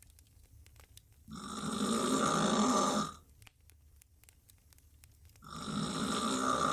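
A woman snoring loudly while sleeping on her back with her mouth wide open: one long snore about a second in, lasting nearly two seconds, then a quiet pause, and a second snore starting near the end.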